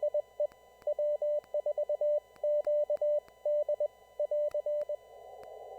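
Morse code (CW) heard on an amateur radio receiver: a single steady mid-pitched tone keyed in dots and dashes over a narrow band of receiver hiss. The keying stops about five seconds in, leaving only the hiss.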